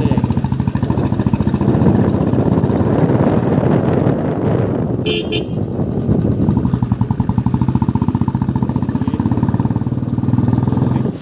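Motorcycle engine running steadily while riding, with a short horn beep about five seconds in.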